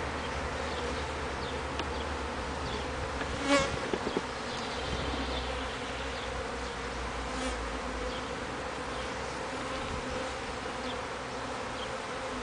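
Honeybees buzzing around an open hive of a busy, newly installed package colony, a steady hum throughout. A few short knocks come around three to four seconds in.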